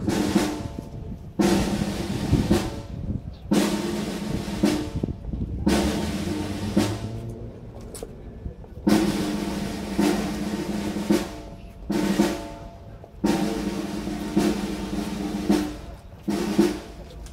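Military band snare drums playing a string of drum rolls, one every second or two, each starting loud and fading away.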